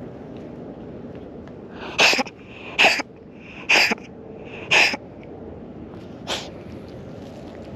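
A run of sneezes: four short, sharp ones about a second apart, then a fainter fifth.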